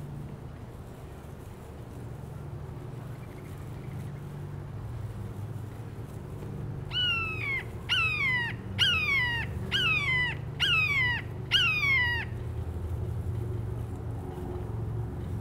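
A large bird calling: six loud calls in quick succession, each sliding down in pitch, starting about halfway through, over a steady low hum.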